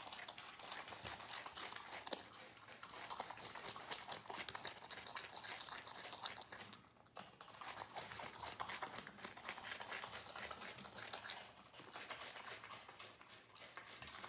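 A mother African crested porcupine and her two-week-old porcupette chewing chunks of sweet potato: a quick, uneven run of small wet crunches and clicks, with a brief lull about seven seconds in.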